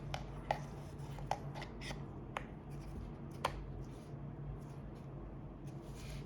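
Several light, sharp clicks and taps of small parts being handled during a phone reassembly, spread over the first three and a half seconds, over a steady low hum.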